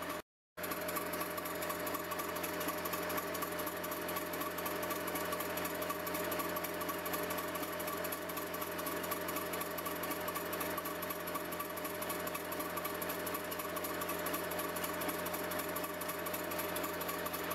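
Miniature live steam locomotive's motion running steadily on its stand, a fast, even mechanical clatter, driving the axle pump while the bypass valve is tested. The sound cuts out briefly just after the start.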